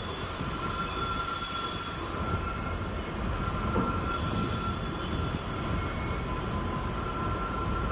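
Aggregate hopper wagons of a freight stone train rolling over a steel girder bridge: a steady low rumble, with a thin, steady high-pitched squeal from the wheels from about half a second in.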